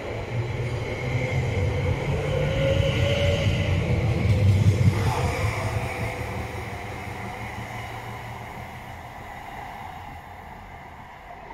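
London Overground Class 710 electric multiple unit pulling out of the station and accelerating away, its motors whining over the rumble of the wheels. It grows louder for the first four or five seconds, then fades steadily as it draws away.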